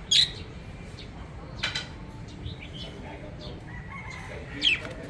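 Pet budgerigars calling: three loud, sharp chirps, one near the start, one under two seconds in and a falling one near the end, over soft chattering.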